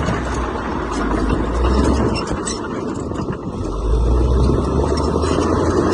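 Heavy diesel earthmoving machinery running, a deep engine rumble that swells again about four seconds in.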